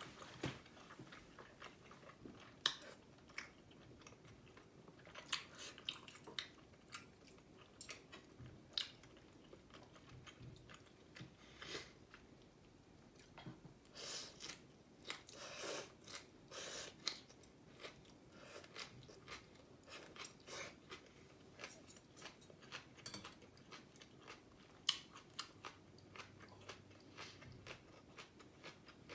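Close-up eating sounds of a person chewing a mouthful of bún bò Huế noodles and beef, with many irregular short clicking sounds.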